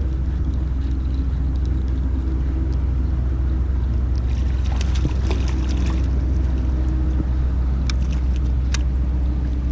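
Steady low motor hum with a few sharp clicks, scattered in the middle and near the end.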